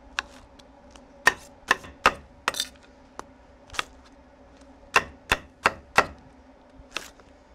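A large chef's knife chopping pineapple spears into chunks, the blade knocking sharply on a steel flat-top griddle: about a dozen irregular chops, with a brief pause a little after the middle.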